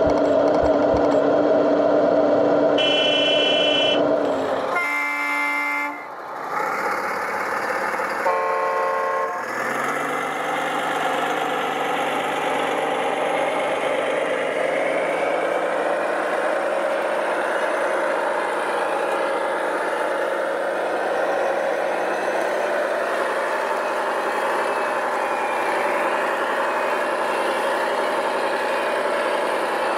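Radio-controlled construction models: a steady whine from the RC excavator's hydraulic pump in the first few seconds, then three short horn toots. After that a steady engine-like drone with slowly shifting pitch runs on as the loaded six-wheel RC dump truck drives through the mud.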